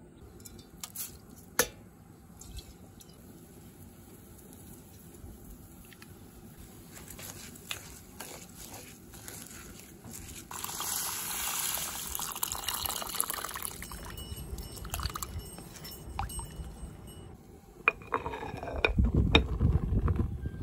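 Soaked rice stirred with a wooden spoon in a stone rice pot, with the sound of water pouring and liquid moving in the pot. A stretch of hissing noise sits about halfway through, and a louder low rumble comes near the end.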